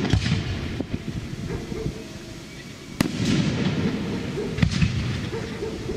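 Aerial firework shells bursting: a loud bang about three seconds in, with lighter reports near the start and about four and a half seconds in, each followed by crackling and rumble.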